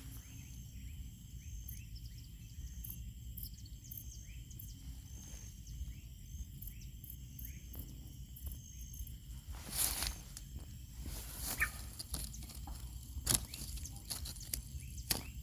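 Birds chirping in short, quick falling calls over a steady high-pitched hum and a low rumble. Several sharp knocks break in during the second half, louder than the birds.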